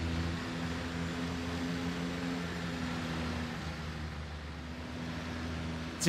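Single-engine light aircraft's engine and propeller droning steadily, heard from inside the cockpit on the final approach to land.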